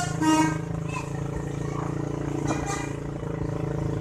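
Bus telolet musical horn finishing its tune with one last note, which ends about half a second in. After it the bus engine runs steadily.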